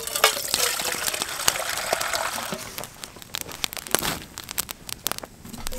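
Water pouring from a soft plastic water bag into a metal cooking pot, splashing steadily for about three seconds. Then a series of sharp clicks and pops from a wood campfire.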